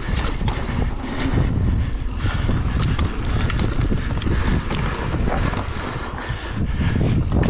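Wind buffeting the microphone over the rolling rumble of a Marin Alpine Trail XR mountain bike's tyres on a dry dirt trail, descending at speed, with frequent clicks and clatter from the bike over bumps.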